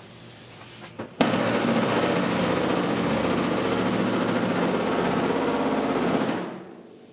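Pneumatic air hammer with a flat head rattling rapidly against the steel rear body panel of a 1972 Triumph GT6, hammering a raised seam down. The air pressure is turned down through an inline regulator. It starts suddenly about a second in, runs steadily for about five seconds and dies away near the end.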